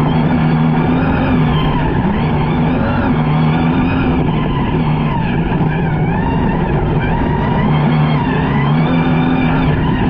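Rally car driven flat out on gravel: the engine runs hard, its revs rising and falling again and again, over a steady rush of tyre and gravel noise.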